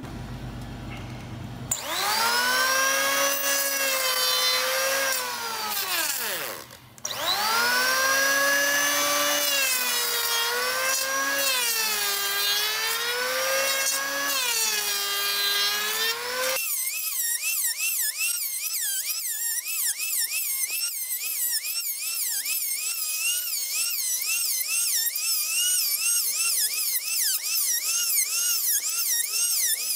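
Handheld electric planer running and cutting plywood edges, its motor pitch sagging and recovering as the blade bites, with a brief stop about seven seconds in. Past the halfway mark the sound abruptly turns thinner and higher, its pitch wobbling quickly.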